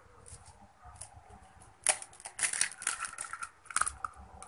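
A hen's egg being cracked against a plastic mixing bowl: one sharp knock about two seconds in, then a run of short crackling clicks as the shell is broken and pulled apart over the batter.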